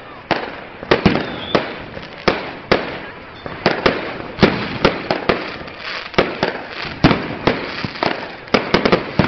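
Aerial fireworks bursting in a rapid, irregular series of sharp bangs, about two a second, each bang trailing off briefly.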